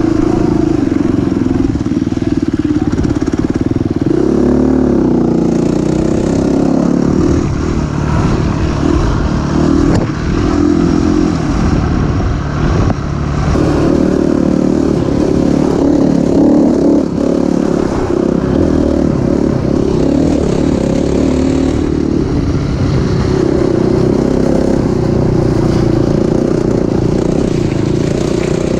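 Enduro dirt bike engine running under the rider, its pitch rising and falling as the throttle opens and closes, with a few short knocks from the bike over rough ground.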